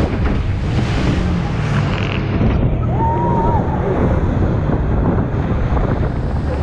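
Speedboat running fast through rough white water: rushing water and spray over a low engine drone, with strong wind buffeting the microphone. A short high rising-and-falling cry sounds about halfway through.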